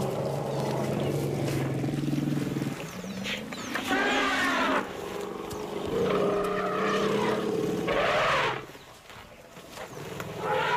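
African elephants calling loudly during a confrontation between two families: low rumbling calls at first, then loud, bending roars and trumpets about four seconds in and again from about six to eight seconds in.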